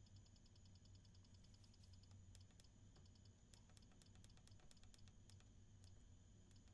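Faint clicks of the push-buttons on a glass kiln's digital controller as the firing temperature is set: a rapid run of even ticks for about the first second and a half while a key is held, then a string of about a dozen single clicks.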